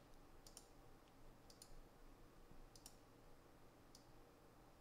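Faint computer mouse clicks, each a quick press-and-release, about one a second over a low room hum.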